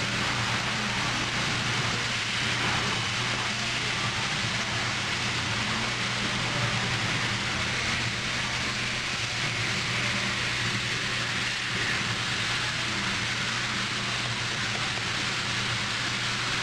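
Steady hiss with a low hum underneath, even throughout with no distinct knocks or clinks.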